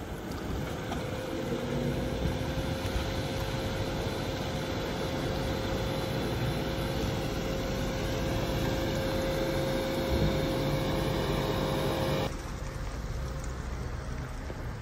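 Engines of off-road 4x4 SUVs running as they drive past, a steady drone with a held hum. About twelve seconds in it switches abruptly to a quieter engine sound.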